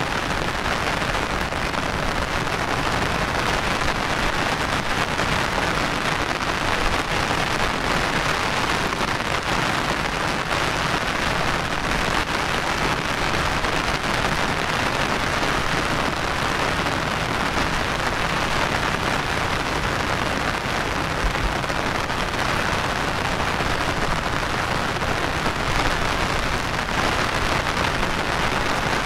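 Heavy monsoon rain falling steadily: a dense, even hiss of rain on the ground and water, unbroken throughout.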